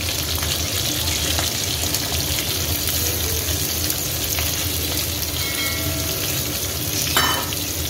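Hot oil sizzling steadily in a kadai with whole spices, dried red chillies, curry leaves and green chillies frying, as sliced onions go into the pan. A short sharp knock about seven seconds in.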